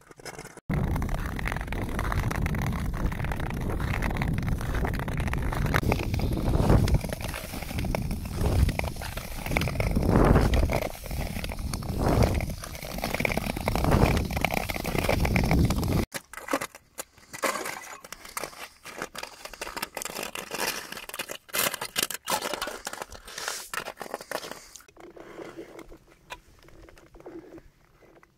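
Nordic skate blades gliding and scraping over frost-covered lake ice, with a loud rushing noise that swells every second or two. About sixteen seconds in it cuts suddenly to a much quieter stretch of scattered clicks and crackles.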